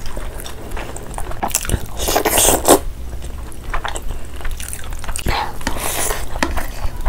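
Close-miked eating: biting into and chewing spicy chicken drumsticks and hand-fed mouthfuls of curry rice, with irregular wet mouth clicks and crunches.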